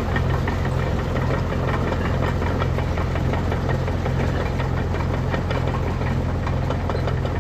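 An engine running steadily, with an even low hum.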